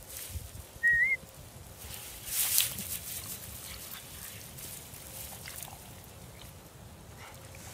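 A single short, wavering high squeak about a second in, then a brief rustle of dry grass around two and a half seconds in, over a faint outdoor background.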